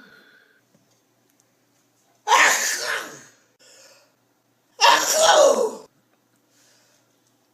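A person sneezing twice, about two and a half seconds apart. Each is a loud burst with a voiced 'choo' that falls in pitch.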